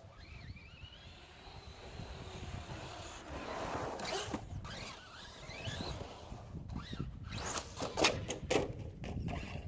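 Brushless electric motor of an RC truggy, a 2000kv motor on a 6s LiPo, whining as it speeds up and slows, with tyres scrabbling on loose ground. Several sharp knocks in the last few seconds, the loudest near the end.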